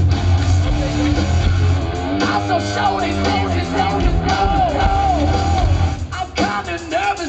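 Live rock band playing loudly: heavy bass and drums with electric guitars, and a singer yelling and singing over them from about two seconds in. The low end drops out briefly near the end.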